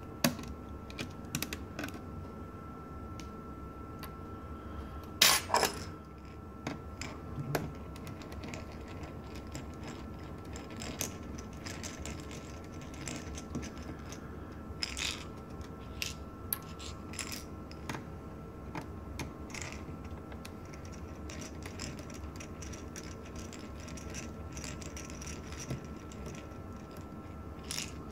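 Small clicks, taps and scrapes of tweezers and a screwdriver working the tiny screws out of a netbook's chassis, with a louder clatter about five seconds in, over a faint steady hum.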